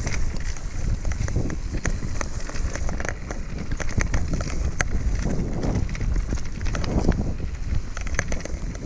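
Ride noise of a mountain bike descending a dirt singletrack: a steady low rumble of wind buffeting the camera microphone, with frequent clicks and rattles from the bike jolting over the rough trail.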